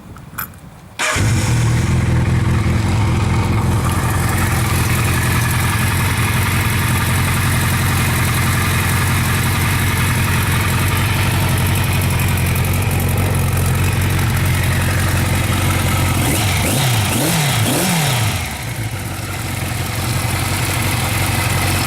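1982 Kawasaki KZ1100 Spectre's air-cooled inline-four motorcycle engine starting after a couple of clicks and settling into a steady idle. It is revved up and down a few times near the end, then idles again.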